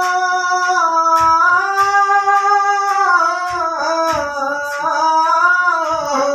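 A singer holding one long drawn-out note of a ghazal line, stepping up in pitch and back down, with a light accompaniment and a few soft percussive strokes.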